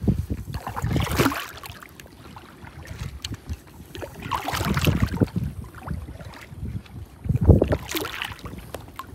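Kayak paddle strokes dipping and splashing in calm water, three strokes about three seconds apart, with wind buffeting the microphone in between.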